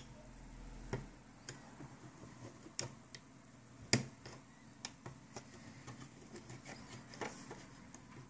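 Faint, scattered clicks and ticks of a plastic loom hook and the loom's plastic pegs as rubber loom bands are lifted off them one after another, with the sharpest click about four seconds in.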